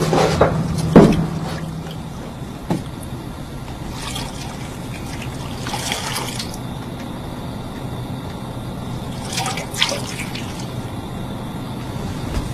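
Water splashing and dripping in a brass basin as a cloth is dipped and wrung out, in a few separate bursts over a steady low hum.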